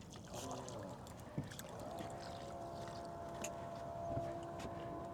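Electric trolling motor running faintly as a low steady hum that comes on about two seconds in, with a few light clicks of tackle being handled in the boat.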